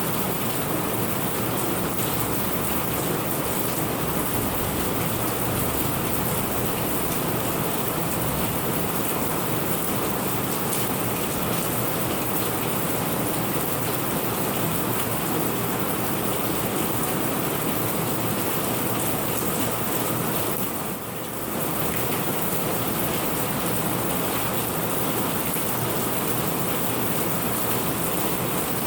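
Steady rain, an even hiss of many drops falling, with a brief dip in level about two-thirds of the way through.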